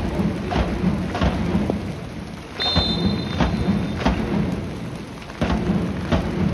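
Wind buffeting a phone microphone: a loud, uneven low rumble that surges suddenly in gusts, with scattered knocks. About three seconds in, a referee's whistle sounds one steady blast of just over a second.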